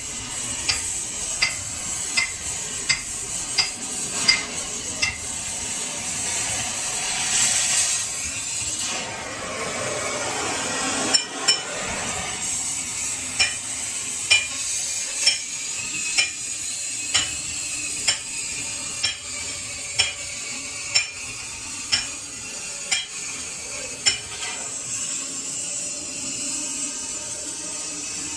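Light metal-on-metal clinks, each ringing briefly, coming at an even pace of about one a second in two runs, over a steady hiss.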